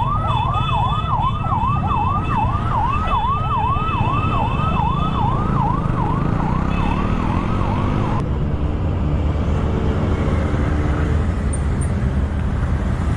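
A siren warbling fast, about two sweeps a second, over the steady run of motorcycle engines and wind noise. The siren cuts off about eight seconds in, leaving the engines.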